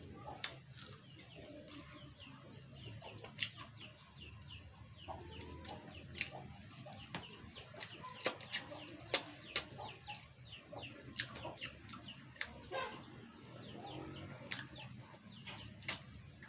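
Background birds and chickens calling, a continual run of short, quickly falling chirps, with a few sharp clicks scattered through.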